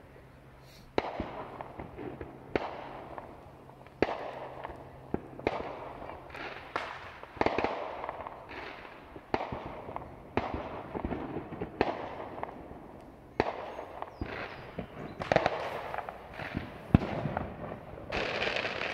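Fireworks going off as a long, irregular string of sharp bangs, roughly one a second, starting about a second in; each bang trails off in a short echo, and the loudest comes near the end.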